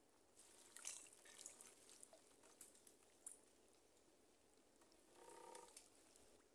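Faint crackling, trickling and dripping as a wet net trap is lifted off the mud and out of the shallow mangrove water. A short faint pitched sound comes about five seconds in.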